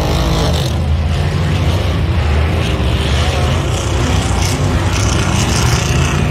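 Ultra4 off-road race car's engine running loud and low as the car works up a rock section.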